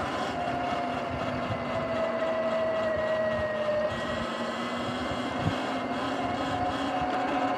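Sur-Ron electric dirt bike cruising: a steady whine from its electric motor and drive, drifting slightly in pitch with speed, over tyre and wind noise. There is one sharp knock about two-thirds of the way through.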